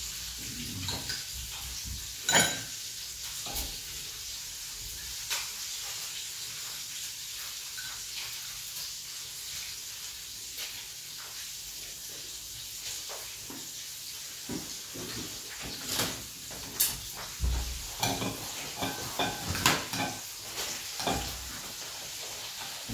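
Metal spoons clinking and scraping in ceramic bowls during eating, in scattered single taps that come more often near the end. Under them runs a steady sizzling hiss from chicken frying in oil.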